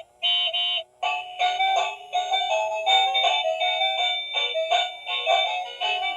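Tinny electronic melody of quick, beeping notes with almost no bass. It cuts out twice briefly in the first second.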